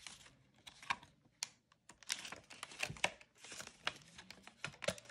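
Paper bills and cash envelopes being handled: a quick, uneven run of light clicks, taps and crinkling rustles.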